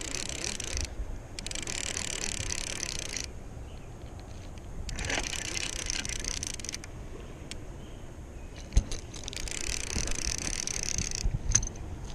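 Fishing reel whirring in four bursts of a second or two each while a hooked blue catfish is being fought, with a sharp click near the middle.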